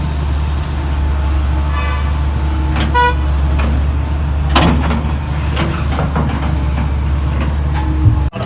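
Heavy diesel excavator engine running with a steady low drone. Two short horn toots sound about two and three seconds in, and a sharp knock follows about a second and a half later.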